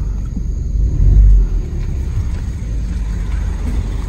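Car running, heard from inside the cabin as it rolls up to a car wash kiosk: a steady low rumble that swells briefly about a second in.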